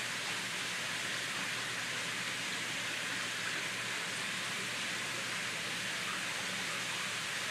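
Steady, even rushing hiss of running water, with no breaks or changes in level.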